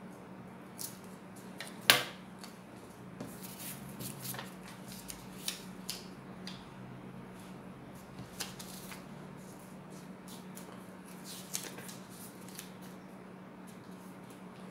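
Scissors snipping paper, with a sharp click about two seconds in, then scattered light crinkles and clicks as the paper is handled and folded. A steady low hum runs underneath.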